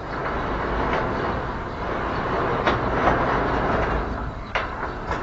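Steel cantilever sliding gate rolling along its steel track on roller carriages, a steady rumbling grind with a few knocks in the second half. The rail is held down with a shovel blade, and the builder takes the earlier binding for only a rail-height problem.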